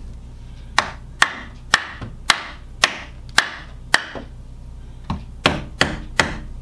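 Hammer tapping the bottom of a wooden window side trim, wedging it up into place against the frame. About eleven sharp knocks roughly two a second, with a short pause after the seventh.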